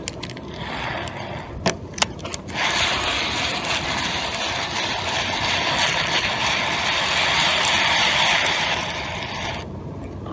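Spinning fishing reel cranked fast, its gears giving a steady whir for about seven seconds as line is wound in, after a few sharp clicks in the first two seconds.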